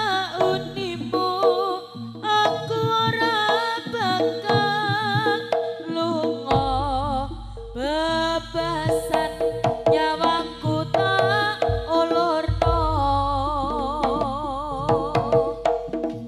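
Live Javanese jaranan music through a PA: wavering melody lines over hand drums, with a deep bass beat coming in about six and a half seconds in.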